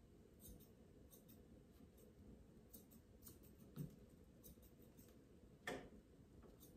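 Faint snips of grooming scissors trimming the hair on a dog's front legs, as scattered small clicks, with a soft low thump about four seconds in and a sharper click near the end.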